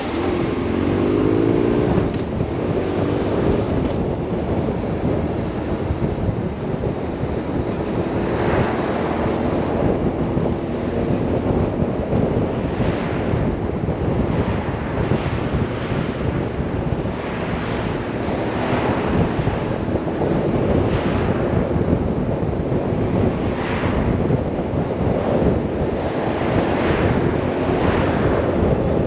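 Wind rushing over the camera microphone on a moving BMW R 1150 RS, with the bike's boxer-twin engine running underneath. The engine pitch climbs in the first couple of seconds as it accelerates. Several brief whooshes follow from passing oncoming traffic.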